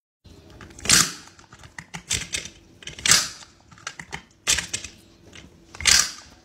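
A series of sharp clicks at uneven spacing, the strongest roughly a second apart, with fainter ones in between.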